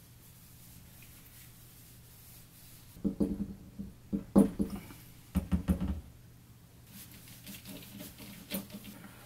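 Handling noises of small fuel-line parts: irregular clicks, scratching and rubbing as hands work a rubber connector sleeve and small hose clamps onto a thin plastic diesel fuel line. The clicks come in clusters from about three to six seconds in, with a few dull knocks, then fade to faint rustling.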